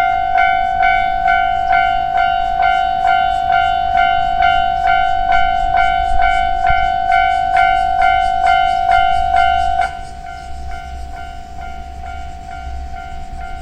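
Japanese level crossing warning bell ringing rapidly, about three strikes a second over a steady ringing tone. About ten seconds in it drops sharply in level and keeps ringing more faintly.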